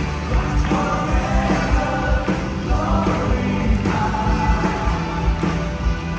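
Praise-and-worship music: a band with a steady drum beat under a sung melody.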